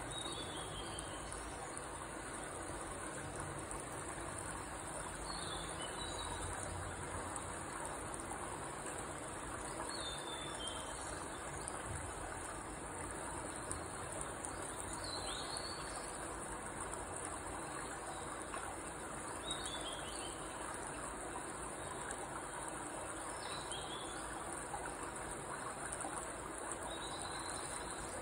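Steady, high-pitched insect chorus over a low hiss, with short falling bird chirps every few seconds.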